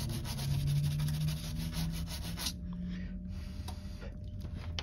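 Toothbrush scrubbing a water-damaged phone's circuit board wet with board-cleaning solution, in rapid back-and-forth strokes that stop about halfway through; a few faint clicks follow. The scrubbing clears the board of corrosion after the water damage.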